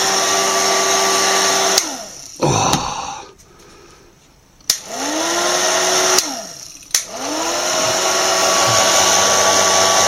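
Vintage Siemens hairdryer's fan motor running with a steady whine, then switched off and winding down about two seconds in. A switch click brings it spinning back up; it is switched off and on once more with another click, and then runs steadily.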